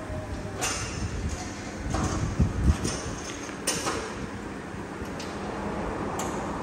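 A few sharp metallic clanks and knocks, with a short run of dull thumps about halfway through, as a drive belt is worked onto the pulley of a homemade lathe, over steady workshop background noise.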